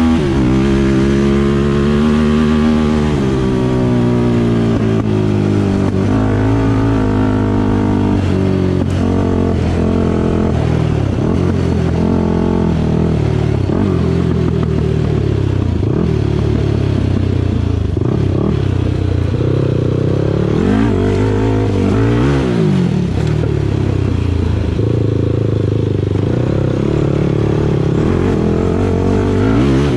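Off-road vehicle engine running under way, revving up and down again and again as it is ridden, with some clattering over rough ground.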